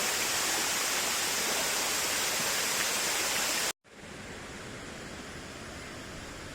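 Steady rush of water from a waterfall. A little under four seconds in, it cuts off abruptly, and a quieter, duller rushing hiss follows.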